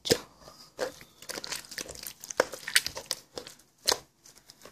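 Aloe slime being squished and worked by hand, giving a run of irregular crackling clicks and pops.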